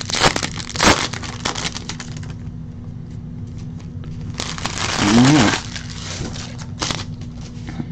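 Foil wrapper of a baseball card pack torn open and crinkled in the hands. A louder rustle of foil and cards comes about five seconds in, and a short one near the end.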